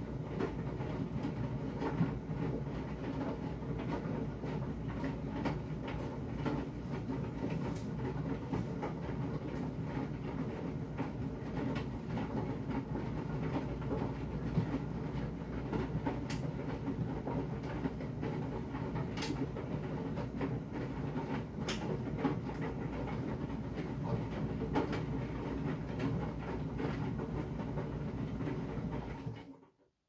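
Electrolux 9 kg tumble dryer running on its denim programme: a steady motor hum with the drum turning the load, and occasional sharp clicks. The sound cuts off abruptly just before the end.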